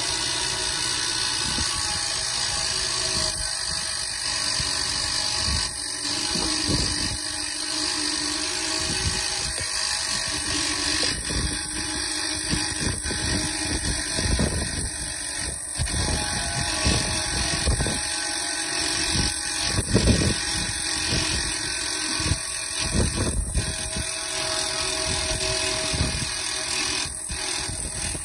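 Electric boat-trailer winch motor running steadily under heavy load, hauling a 7.5 m plate aluminium boat up onto its trailer. A few louder thumps come through, the loudest about twenty seconds in.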